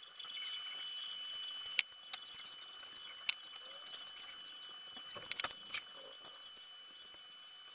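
A steady high-pitched whine with a few sharp clicks and knocks, the loudest about two seconds in and a short cluster a little after five seconds.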